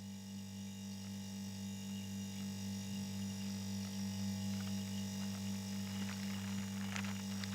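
Steady low electrical hum from a refrigerator, with faint crackling clicks coming in about halfway through and growing denser near the end.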